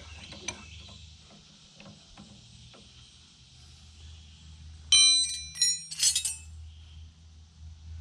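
Small clicks of hand tools working on hydraulic fittings, then, about five seconds in, a few bright metallic clinks with short ringing as steel wrenches knock together. A low steady hum runs underneath.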